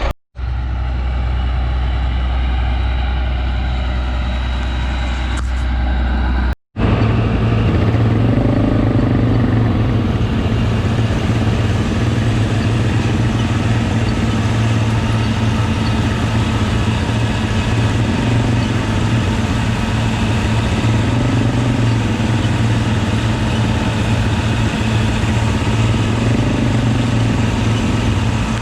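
Heavy farm machinery engine running steadily. The sound drops out briefly just after the start and again about six and a half seconds in, where the clip changes and a steady engine hum runs on.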